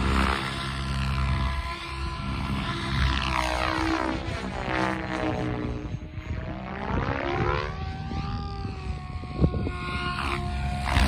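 SAB Goblin 700 electric RC helicopter flying aerobatics: rotor blades and motor whine. The pitch and loudness swell and fade as it climbs away high and swoops back low, with one sharp click about nine seconds in.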